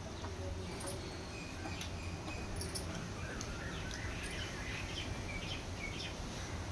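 Faint outdoor background: a steady low hum with scattered short, high chirps, most of them in the middle stretch, and a couple of sharp clicks about a second in and near three seconds.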